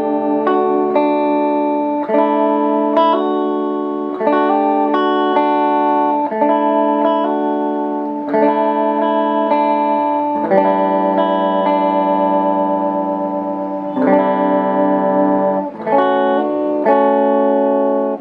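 Electric guitar played through a locally made custom Fender amplifier on its clean channel, with the tone switch at normal: chords struck every second or two and left to ring, undistorted.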